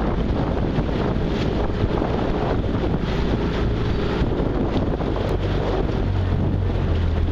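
Wind buffeting the microphone over the steady low hum of a motorboat engine, its note growing stronger about six seconds in.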